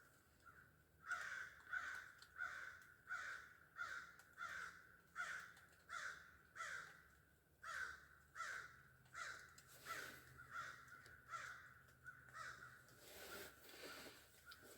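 Crows cawing, a long run of harsh caws about every two-thirds of a second that starts about a second in and grows weaker toward the end; faint.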